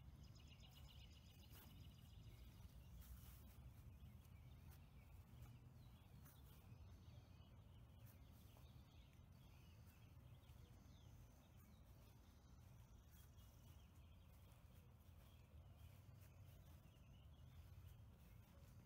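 Near silence: faint outdoor ambience with a low rumble, and faint bird chirps and trills, most noticeable near the start.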